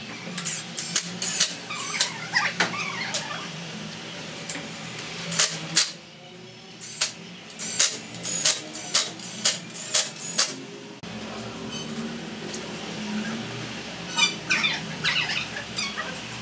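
Sharp metallic clicks and clinks of parts and bolts being fitted to an aluminium Renault JF017 gearbox case, most of them in the first ten seconds. A steady low hum follows, with a few more clicks near the end.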